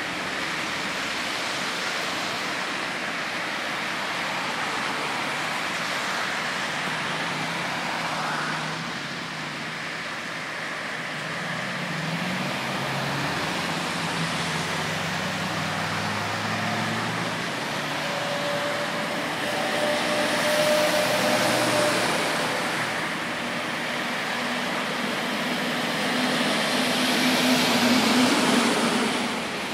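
Motorway traffic: a steady wash of tyre and engine noise, with the low hum of slow-moving cars and two louder swells, about twenty and twenty-eight seconds in, as vehicles pass close by.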